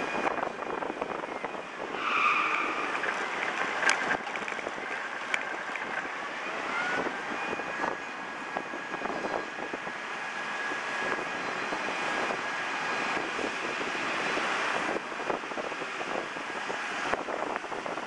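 City street traffic noise: a steady roar of passing cars, with a short high tone about two seconds in and a thin steady whine through the middle.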